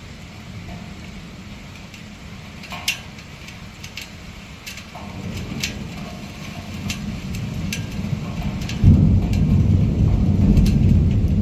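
Thunderstorm: steady rain with scattered sharp raindrop ticks close by, and thunder rumbling that builds from about halfway through. A sudden loud thunderclap breaks about nine seconds in, followed by heavy low rumbling.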